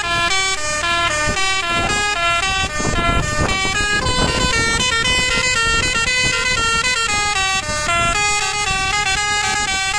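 Bus 'telolet basuri' multi-tone horn playing a quick melody, its notes changing several times a second with two or more horn tones sounding together, over the rumble of the bus.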